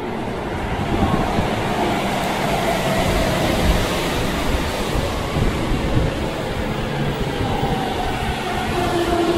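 Toei 10-300 series subway train pulling into an underground station platform: a rushing rumble of wheels and air that builds to loud and stays there, with a thin whining tone running through it.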